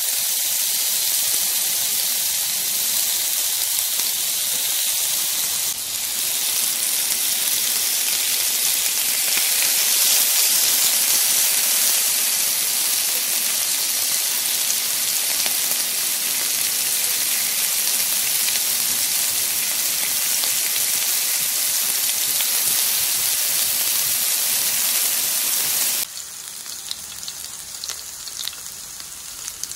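Beef offal (tripe, intestines and liver pieces) sizzling on a Zojirushi electric grill plate, a steady frying hiss. Near the end it drops suddenly to a quieter sizzle with scattered crackles.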